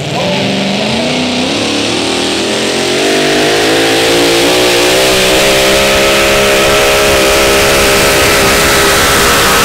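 Super modified four-wheel-drive pulling truck's engine revving up, its pitch climbing over the first three seconds, then held at high revs under load with a slight waver.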